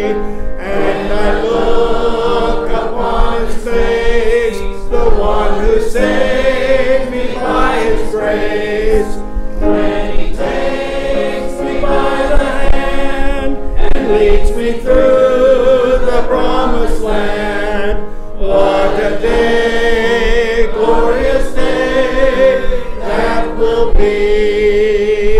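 Church congregation singing a gospel hymn together, many voices in sung phrases with short breaths between them.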